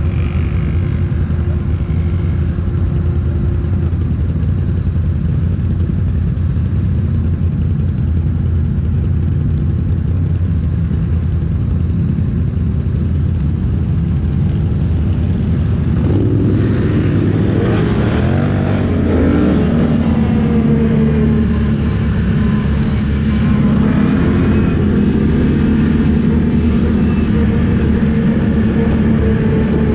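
ATV engine running at low revs; about halfway through the revs swing up and down, then it holds a steadier, higher note.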